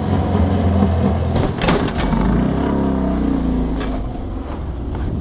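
Snowmobile engine running, with a sharp crash about one and a half seconds in as the sled comes down after a failed backflip.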